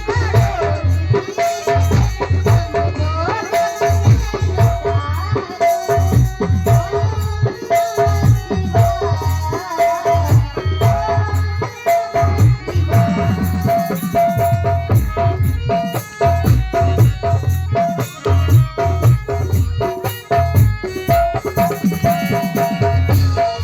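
Music: a song with a steady, heavy bass beat and percussion.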